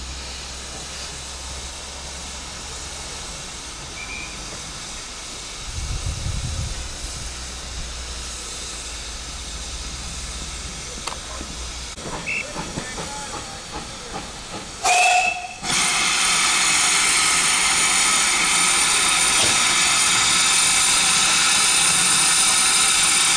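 A steam locomotive standing at the platform lets out a short whistle blast about two-thirds of the way in. Right after it, a loud, steady hiss of escaping steam begins and keeps going. Earlier, a low rumble comes from a train pulling away on the far track.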